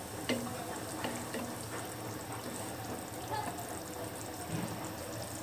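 Rohu fish curry simmering and sizzling in a pan while a wooden spatula stirs and turns the fish pieces, with a few light knocks of the spatula against the pan.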